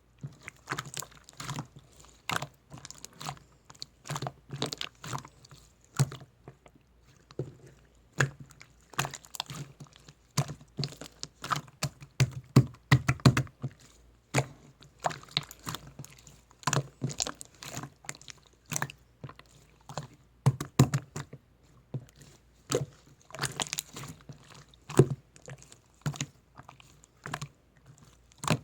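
Close-miked chewing and crunching of food: irregular crisp bites and crackles with wet mouth sounds in between.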